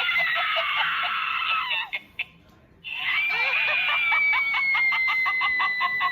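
Chucky Sidestepper animatronic doll playing its sound track through its small built-in speaker: a high, slowly falling tone over rapid, even pulsing. The sound stops briefly about two seconds in and then starts again.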